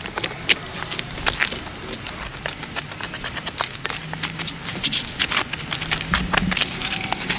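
Hand tools working stone and packed soil: a quick series of clicks, taps and scrapes, thickest in the middle, with a shovel scraping through loose dirt near the end.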